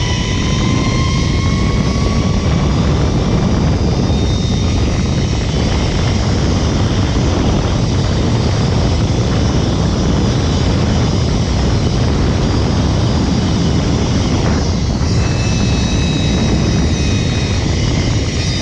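Zip-line ride: wind rushing over the microphone with the trolley's pulleys running along the cable, a steady loud rush with a faint whine that rises slowly in pitch near the start.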